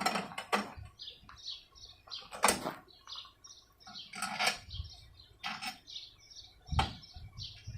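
Birds chirping repeatedly in the background while sharp knocks and clunks sound about six times, the loudest about two and a half seconds in and near the end, as lawn mower parts are handled during assembly.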